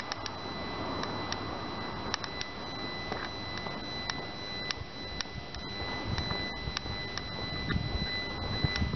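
Handheld camera's own recording noise while walking: a rough low rustle of handling and wind, a thin steady high whine, and scattered faint clicks, with a few low thumps near the end.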